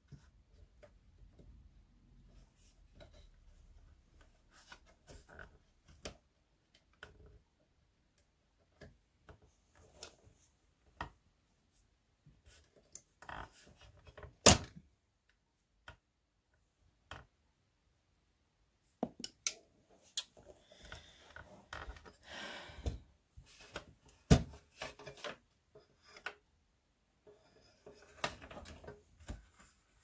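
Scattered clicks, knocks and metal clattering as a steel desktop computer case is pried at and taken apart by hand and with pliers. A single sharp, loud knock comes about halfway through, and the handling gets busier in the last third with another hard knock.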